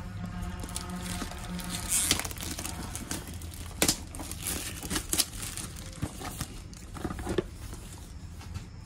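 Clear plastic wrap on a small cardboard box crinkling and tearing as it is pulled and picked at by hand, with sharp crackles every second or so. Tearing the wrap open by hand, without scissors or a knife, is a struggle.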